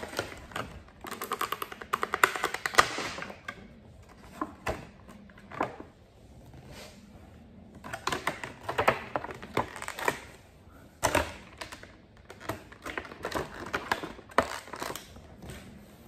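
Handling of a Funko Pop's cardboard box and plastic tray: irregular clicks, taps and crinkling in clusters as the figure is unboxed.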